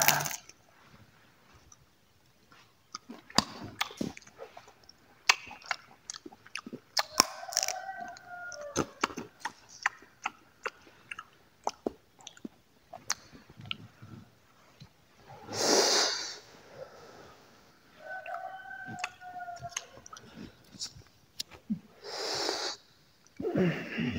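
Close-up chewing of crunchy dry fruit: scattered sharp crunches and mouth clicks. Two long breaths of cigarette smoke, one about two-thirds of the way through and one near the end.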